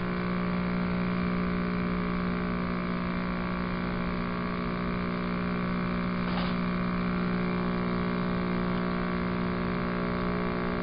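Steady electrical buzz with a strong low hum and many overtones on an old home-video tape's audio track, with one faint tick about six seconds in.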